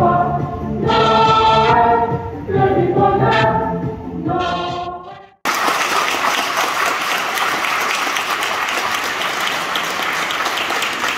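A choir of girls and women singing; the singing stops abruptly a little over five seconds in, and an audience applauding follows to the end.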